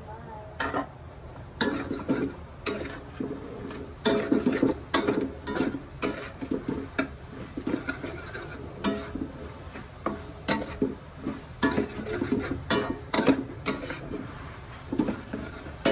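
Metal spatula scraping and clanking against a metal wok as pork is stir-fried, in irregular strokes, each knock ringing briefly.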